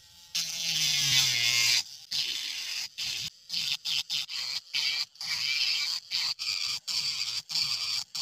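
Small electric sanding drum, a sandpaper sleeve on a hand-held motor, grinding the edges of a PVC cab. It grinds continuously for about a second and a half, then in short bursts, about two a second, as the piece is pressed on and lifted off.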